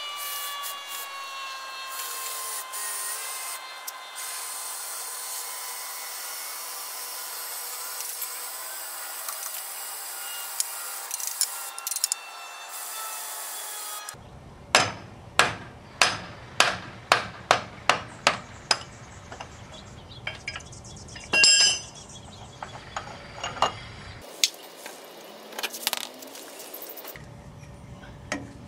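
Scissor lift's power unit running as it raises the car, a steady whine sinking slightly in pitch. About halfway through it gives way to hand tools on metal: a quick run of sharp clicks, then scattered clicks and taps with one louder rattle.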